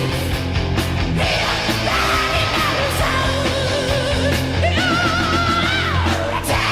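1980s heavy metal band playing with distorted guitars, bass and drums, under a high wailing lead line that wavers in pitch. A held, vibrato-laden high note slides down and drops away about six seconds in.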